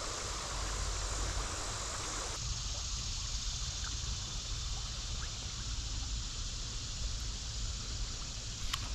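Steady rush of river current running over a shallow gravel riffle, with a low rumble underneath. About two seconds in it turns softer and duller.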